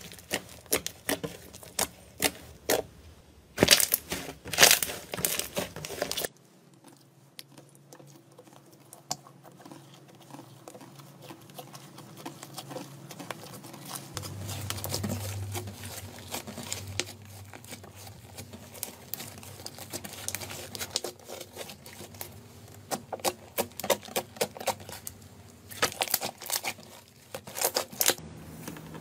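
Slime being squeezed, poked and stretched in a run of short ASMR clips: dense crackling, crinkling clicks and squishes. A quieter stretch in the middle carries a faint low hum.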